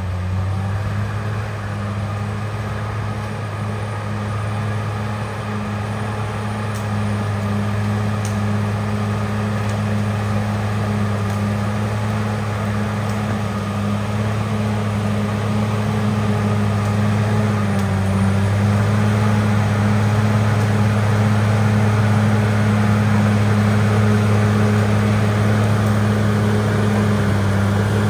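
CAT D6R XL crawler dozer's diesel engine running with a steady low drone as the dozer pushes and spreads loose dirt, getting louder in the second half.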